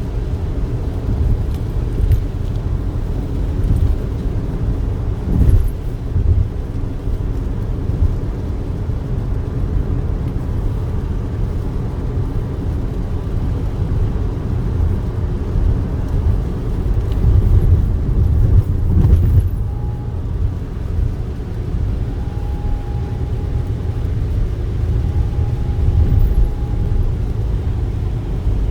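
Steady low rumble of a moving vehicle, with a few brief louder swells and a faint high tone coming and going in short stretches in the last third.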